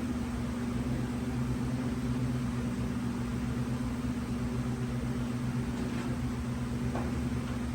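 Steady mechanical hum with a rushing of air, a machine or fan running without change. A few faint ticks come near the end.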